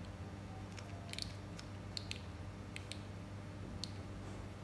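Scattered small sharp plastic clicks, about eight in all, from a syringe being handled on a DTF printer's print-head ink damper, over a steady low hum.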